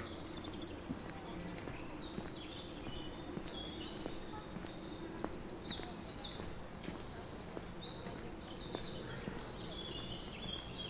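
Several songbirds singing at once, with quick, high trilled phrases that are busiest and loudest in the middle, over a faint steady low hum.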